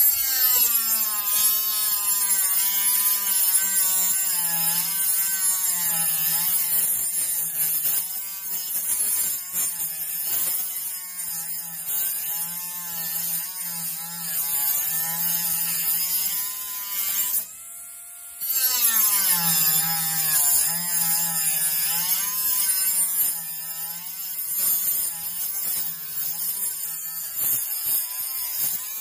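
Bosch GWS 12V-76 cordless mini angle grinder cutting, its motor pitch dipping and recovering as the load changes. It stops briefly a little past halfway, then starts again and carries on cutting.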